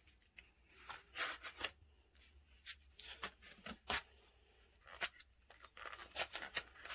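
Pages of a thin paperback picture book being handled and turned by hand: soft paper rustles and light ticks, several scattered through, with a busier patch of rustling near the end.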